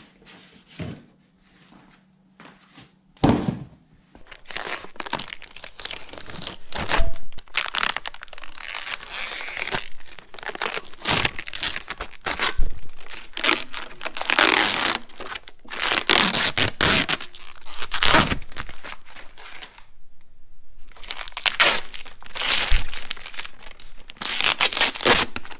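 Plastic wrapping and packing bags crinkling and rustling as they are pulled off a new snowblower, with a single thump about three seconds in.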